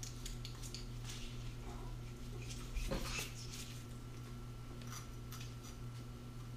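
Manual fillet knife cutting and scraping along a crappie on paper: small scrapes and clicks, with a louder thump about three seconds in, over a steady low hum.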